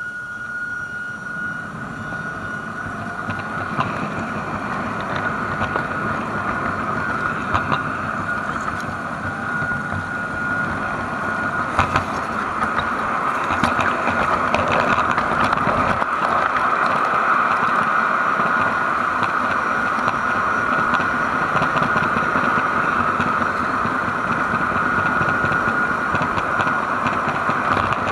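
LGB G-scale garden railway train running with the camera aboard: a steady electric-motor and gear whine over wheels rolling on the track, with a few sharp clicks. The running noise grows louder about halfway through as the train picks up speed.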